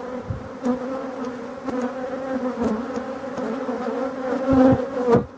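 Steady buzzing of a large honeybee colony swarming over an open hive and the frame lifted from it, a hum with a clear pitch. A few low knocks sound through it.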